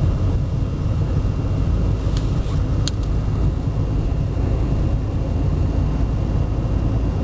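Steady low rumble of a car on the move, with a couple of brief clicks about two and three seconds in.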